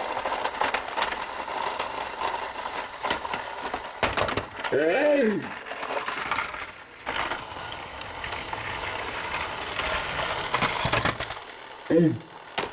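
Plastic toy-train set clicking and rattling, with the small electric motor of a battery-powered TrackMaster engine whirring steadily for the first few seconds. A brief hum of a voice comes about five seconds in and again near the end.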